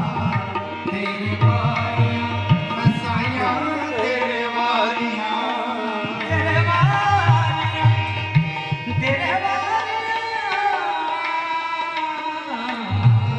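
Live qawwali-style music: tabla strokes under a sustained harmonium line and a melody that slides between notes. The tabla drops out twice, about four seconds in and again from about nine seconds, leaving the melody alone, then comes back in near the end.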